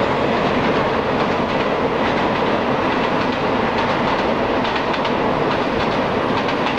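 Express passenger train running past at high speed: a steady rush of wheels on the track, with rapid clickety-clack over the rail joints.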